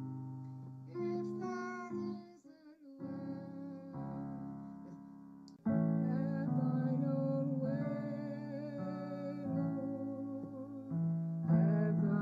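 A hymn played on piano, with a woman singing along.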